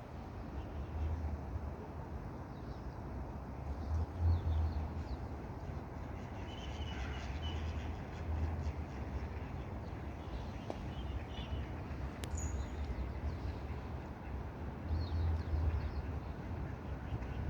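Birds calling a few times over a steady low rumble; the calls come about six to eight seconds in and again near the end.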